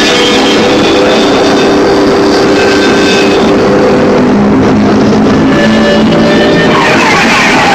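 Loud, dense experimental rock: electric guitars holding droning notes over a noisy haze, with a few gliding tones near the end.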